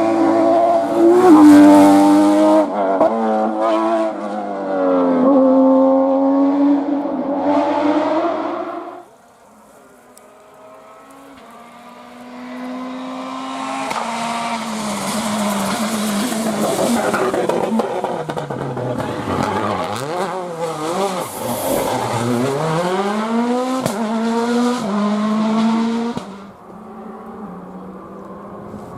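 Two rally cars passing at speed one after the other, engines revving high with the pitch climbing and dropping through gear changes and lifts. The first car passes in the first nine seconds; after a short lull the second approaches, passes and fades near the end.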